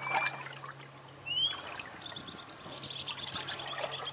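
River-wetland ambience: water trickling and lapping with small crackles, and short whistled bird calls, one rising about a second and a half in. A high, dense chirping chorus sets in about two seconds in.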